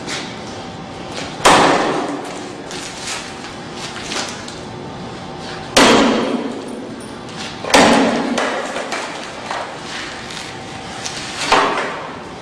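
Sledgehammer blows on a pane of security glass in a steel test frame: four heavy strikes, each followed by a short ring, with lighter knocks between them. The glass is already cracked, but it holds.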